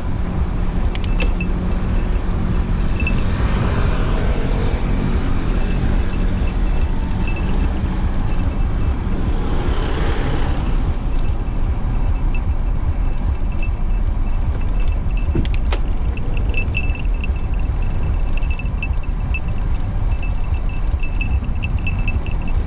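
Steady wind rumble on the microphone of a moving bicycle, with motor vehicles passing in the next lane; the two loudest passes swell up about four and ten seconds in. Light clicking and rattling from the bike comes through, more often in the second half.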